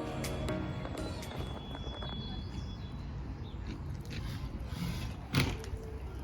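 Background music fades out within the first second, leaving steady outdoor background noise with a low rumble and scattered faint clicks; a single loud knock sounds about five seconds in.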